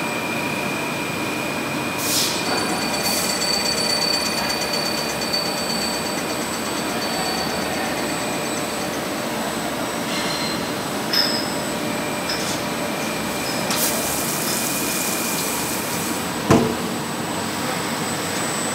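CNC lathe running while turning a metal flange: a steady machine noise with a high whine that drops out for a few seconds midway, and a few sharp knocks, the loudest near the end.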